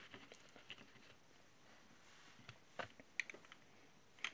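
Near silence, with a few faint, short taps and clicks of small objects being handled, a little over halfway in and again near the end.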